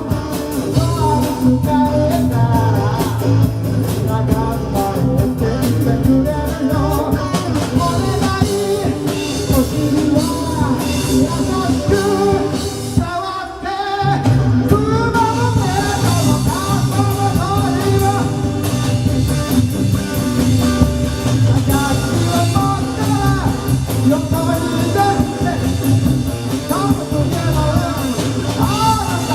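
Live band playing a rock song with a singer and drum kit, with a brief break about thirteen seconds in.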